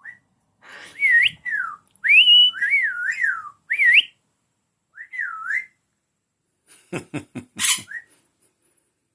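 Pet parrot whistling: a string of clear whistled notes that swoop up and down, a pause, another swooping whistle, then a quick run of sharp clicks and a short hiss about seven seconds in.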